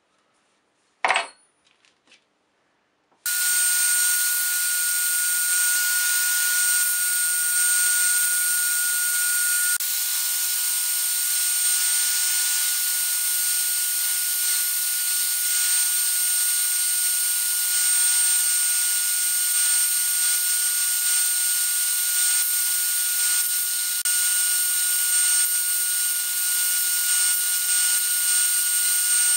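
Wooden letter-opener blade being ground against a spinning 100-grit sanding disc on a wood lathe: a steady, loud rushing hiss with a few steady whining tones. It starts suddenly about three seconds in, after a single click.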